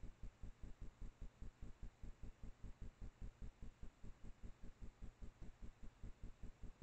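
Faint electrical noise from the trail camera itself: an even, rapid low pulsing, about seven pulses a second.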